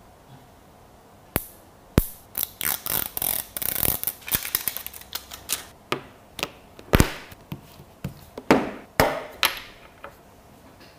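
A smartphone, its charger and cable being handled on a wooden tabletop: several sharp knocks as things are set down or tapped on the wood, with rubbing and sliding sounds in between, busiest in the middle.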